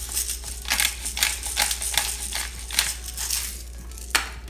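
Hand-twisted pepper grinder grinding peppercorns: a quick run of short gritty crunching turns, then one sharp knock near the end.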